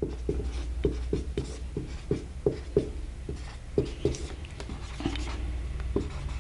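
Marker pen writing on a whiteboard: irregular short taps and scratches, several a second, as figures are written, over a steady low hum.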